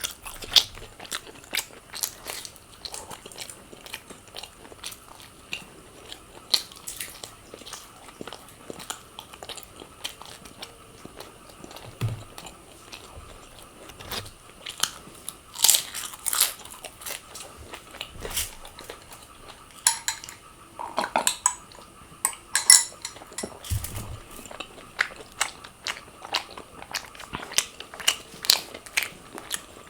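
A person eating crunchy food close to the microphone: an irregular run of crisp bites and crunches while chewing, with a few louder crunches.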